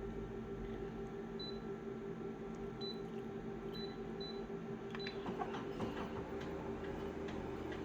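Steady low electrical hum with several short, high beeps at one pitch scattered through it. A cluster of light clicks and taps comes in about five seconds in.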